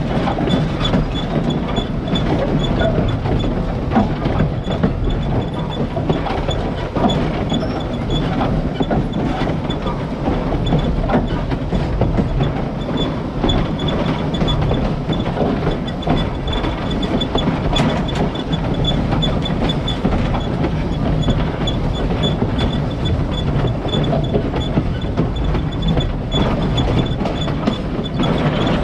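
Pennsylvania Railroad #643, a 0-6-0 steam locomotive, rolling along the track, heard from down by its wheels: a steady rumble and clatter of the wheels on the rails.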